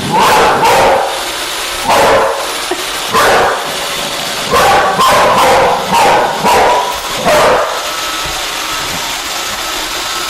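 A boxer dog barking repeatedly at a Roomba robot vacuum, about eight barks in eight seconds, then stopping.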